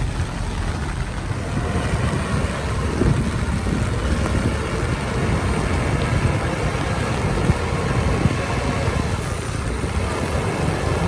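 Heavy diesel earthmoving machinery running steadily under load, a deep continuous rumble with a faint high whine above it.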